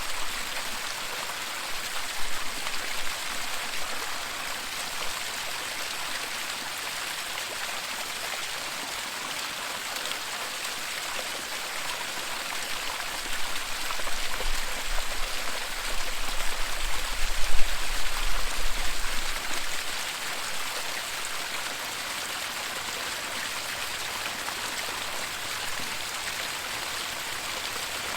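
Waterfall: a steady, even rush and splash of falling water. A low rumble comes and goes between about 13 and 20 seconds in.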